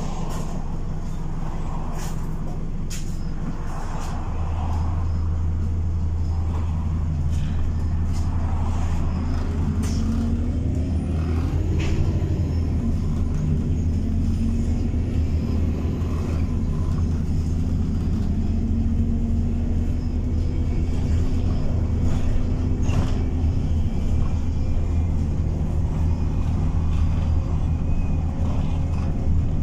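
Bus engine and drivetrain heard from inside the passenger saloon: a steady low drone that grows louder about four seconds in as the bus gets moving, its note rising and falling through the gears, with occasional clicks and rattles from the interior.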